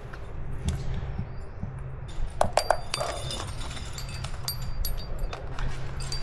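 Climbing rack of carabiners and trad gear clinking and jangling on a harness: a series of short metallic clinks with a light ring, busiest from about two seconds in.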